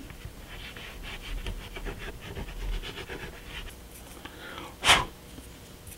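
Quick scraping strokes along the rail tops of a length of painted model railroad flex track as the paint is rubbed off the railheads, then one short loud burst of noise near the end.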